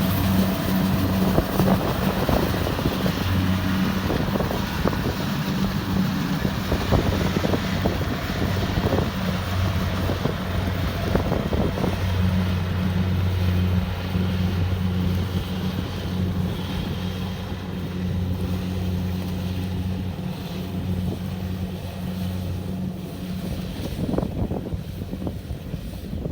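Kubota DC-70 Plus combine harvester working in the field, its engine running at a steady pitch with a low drone over threshing and machine noise. The drone weakens near the end.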